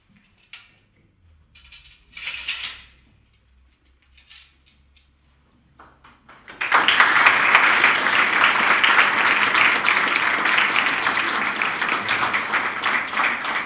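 An audience of students applauding with a dense, steady clapping that starts suddenly about six and a half seconds in and keeps going. Before it come a few faint clicks and a short scrape about two and a half seconds in.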